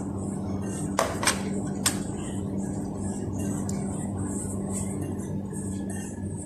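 Hand rubbing ghee into maida flour in a glass bowl, a soft rustling, with three sharp clicks of the hand against the glass between one and two seconds in, over a steady low hum.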